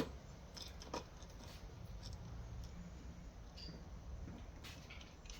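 Faint clicks and small handling noises of a hand tool at work, a sharp click right at the start and another about a second in, as a Schrader valve core is unscrewed from a car's A/C low-pressure port.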